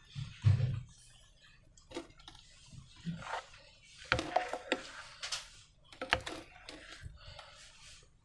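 Hands handling slime and balloons: two soft low thumps in the first second, then a run of sharp clicks and short crackling, sticky sounds.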